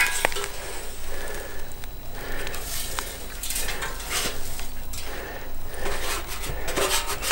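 A torn, holed thin sheet-metal cooking pot, blown open by a firecracker, picked up and flexed by hand: irregular metallic crinkling with scattered light clicks and clanks.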